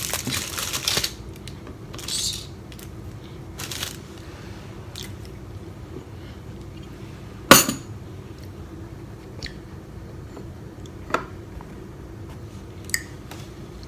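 Items being handled and set down on a table: soft rustling early on, one sharp clatter about halfway through, and a few lighter clicks afterwards.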